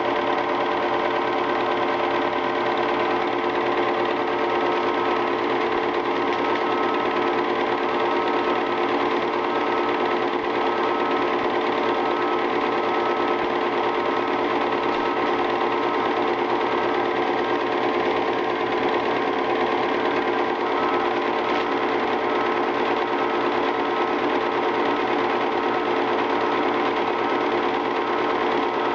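Film projector running, a steady, unbroken whirring clatter of its motor and film mechanism with a constant hum.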